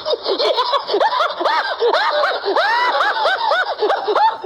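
High-pitched snickering laughter sound effect: a quick, continuous run of short chuckles, each rising and falling in pitch.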